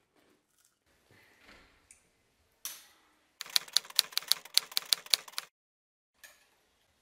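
Typewriter keys clacking in a quick run of about eight strikes a second for two seconds, starting about three and a half seconds in, as the sound effect for title text being typed out letter by letter. A short rushing noise comes just before.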